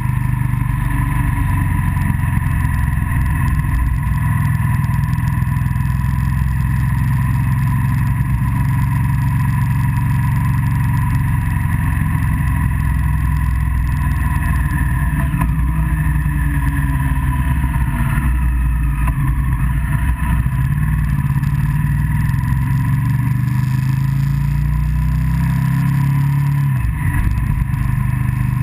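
Motorcycle engine running steadily under way, its pitch dipping and rising again in the second half as the revs change, over a steady rush of wind and road noise.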